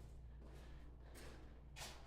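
Near silence: room tone with a steady low hum and two faint, brief hissy rustles, the second near the end a little louder.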